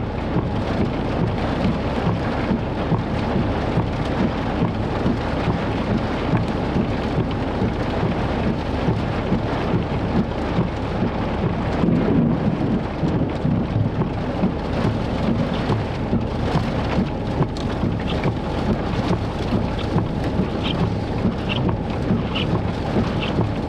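Heavy rain pelting steadily on a vehicle's roof and windshield, heard from inside the car, swelling briefly about halfway through.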